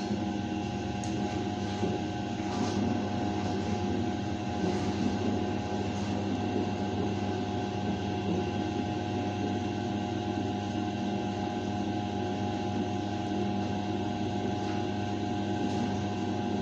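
Steady droning hum with a rumble underneath, holding several constant tones at an even level throughout.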